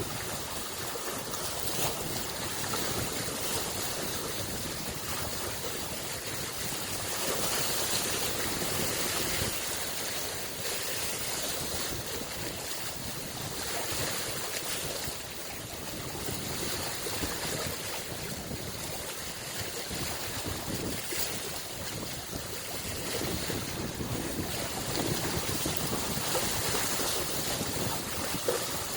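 Small lake waves lapping and washing on the shore: a steady wash of many little splashes that swells gently every few seconds.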